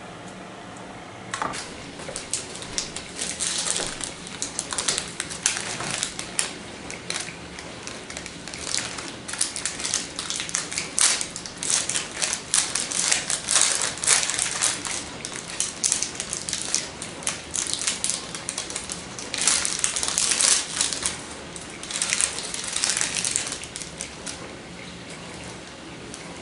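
Foil wrapper crinkling in irregular bursts as it is unwrapped and crumpled in the hands.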